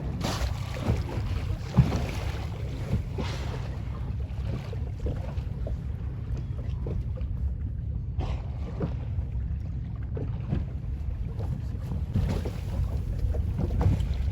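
Rubber boat under way on open sea: a steady rumble of wind on the microphone, with repeated washes of spray and scattered short knocks.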